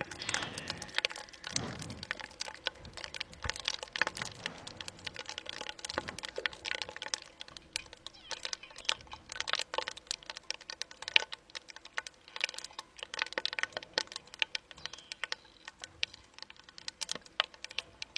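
Supercooled water freezing into ice, crackling with a dense, irregular patter of small clicks and pops.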